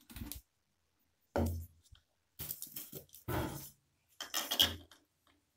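Stainless-steel mixer-grinder jar and its lid clinking and knocking as they are handled: several short metallic sounds about a second apart.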